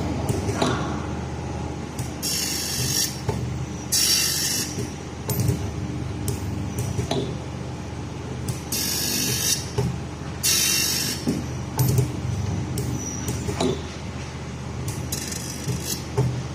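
Gear grinding machine running with a steady hum and irregular clicks, broken every couple of seconds by short bursts of high hissing.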